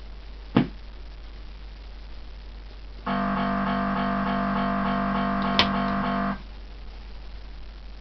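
Maygay Extreme fruit machine being switched on with its repaired board: a single click about half a second in, then about three seconds later a steady electronic tone with a regular pulsing beat from the machine's speaker, lasting about three seconds with a click near its end before it cuts off. The tone is the sign that the board is booting.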